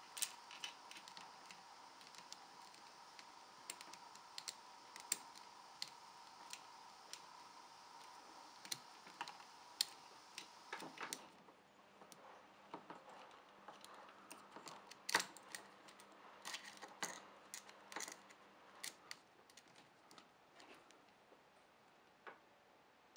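Scattered light metallic clicks and taps of a motorcycle engine's cam chain and camshaft sprocket being handled and seated by hand, the chain links clicking on the sprocket teeth. A faint steady hum underneath stops about halfway through.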